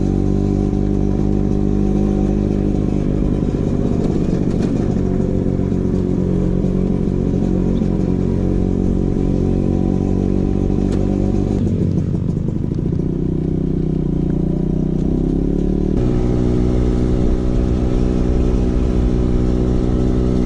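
Vespa PX 150's single-cylinder two-stroke engine running through a DRC Victory racing exhaust while riding. The steady exhaust note dips about halfway through, then climbs back up and settles again.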